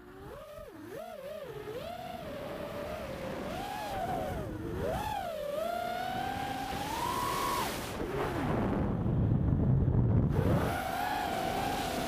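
A racing quadcopter's Lumenier Popo 2206 2450 kV brushless motors and propellers whine, heard from the craft itself, the pitch rising and falling as the throttle changes. About eight seconds in the whine drops away into a rush of air and low rumble, then comes back steadier near the end.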